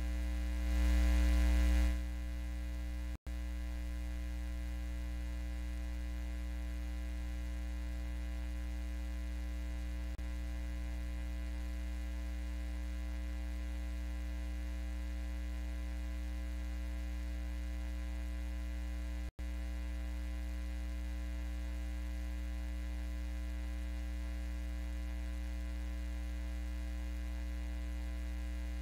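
Steady electrical mains hum in the audio feed, a low buzz with a row of even overtones and no room sound behind it. It cuts out for an instant twice.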